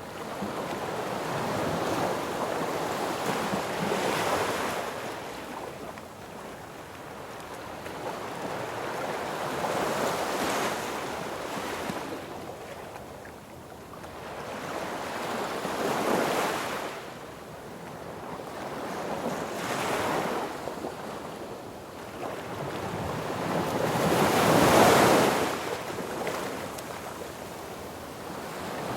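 Sea waves breaking on a beach, the surf swelling and washing back about every five or six seconds, the loudest wave about twenty-five seconds in.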